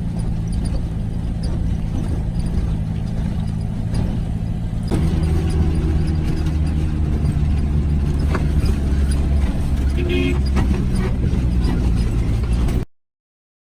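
Vehicle engine running with road noise, its low tone getting louder about five seconds in as it pulls harder. The sound cuts off suddenly near the end.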